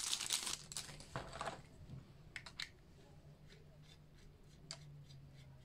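Thin plastic bag crinkling as a walkie-talkie antenna is pulled out of it, then faint clicks and scrapes as the antenna is screwed onto the radio.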